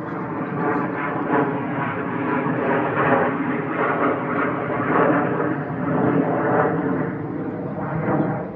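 Steady engine drone with a pitched hum, a little louder in the middle.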